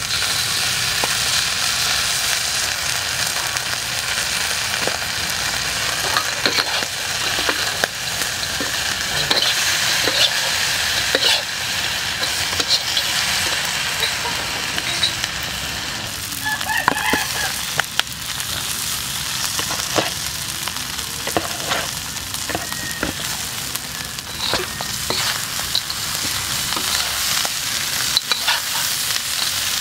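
Frogs stir-frying in a wok: steady sizzling, with a metal ladle scraping and clinking against the pan in many short clicks.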